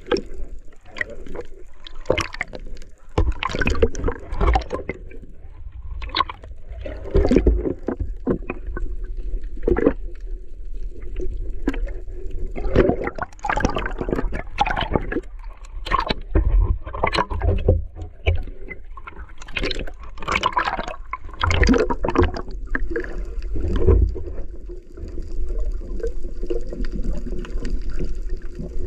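Water gurgling and swishing, heard muffled from underwater, in irregular bursts over a steady low rumble.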